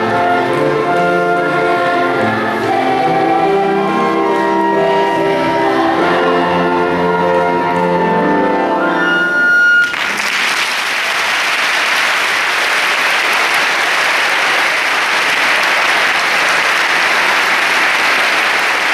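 A choir sings the close of a Christmas carol (villancico), ending on a high held note about halfway through. The audience then bursts into applause that carries on steadily.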